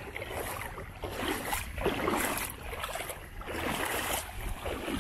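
Small, gentle sea waves lapping and washing over sand in shallow water, rising and falling in swells about once a second.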